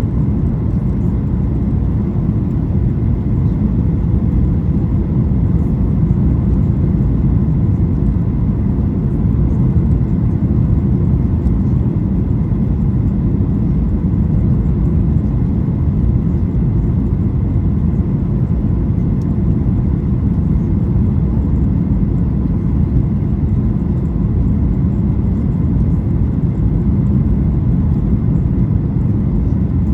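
Steady cabin noise inside a Boeing 737-800 in flight: a deep, even rumble of airflow and the CFM56-7B engines, with faint steady high tones over it.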